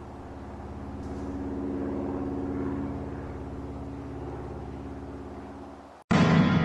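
A steady low buzzing drone swells, then slowly fades, and cuts off abruptly about six seconds in. Loud piano music starts the instant it stops.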